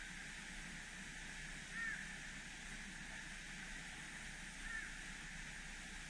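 Steady rushing hiss of the waterfall, with a bird giving two short calls, about two seconds in and again near the end.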